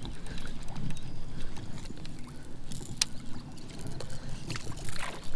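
Hooked channel catfish splashing and thrashing at the water's surface beside a kayak, over a low rumble, with one sharp click about three seconds in.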